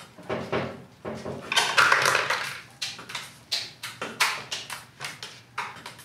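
Rubber Koso Apollo heated grip being twisted and pushed by hand onto the motorcycle's plastic throttle tube: a run of short, irregular rubbing strokes, with a longer, louder rub about two seconds in.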